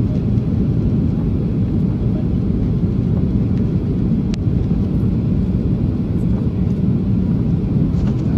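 Steady, deep noise of jet engines and rushing air heard inside an airliner cabin in flight.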